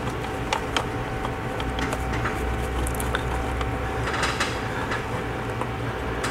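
Small clicks and rustling of a braided rubber hose and its fitting being handled, heard over a steady low hum.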